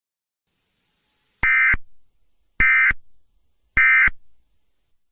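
Emergency Alert System end-of-message signal: three short bursts of SAME digital data tones, about a second apart, marking the end of the alert broadcast.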